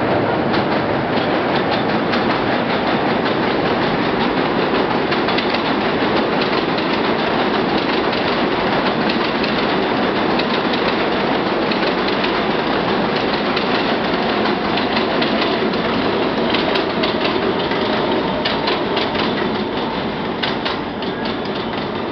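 New York City subway train of R160 cars running through the station, a steady rumble of steel wheels on rail with quick runs of clickety-clack over the rail joints near the end.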